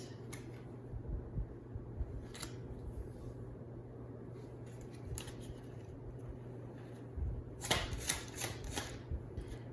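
Tarot cards being handled: soft scattered rustles and light taps, with a quick run of sharper card flicks about eight seconds in, over a steady low hum.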